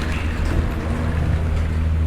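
Eight-person gondola return terminal running: a steady low machine hum with an even noisy wash above it and a few faint light ticks.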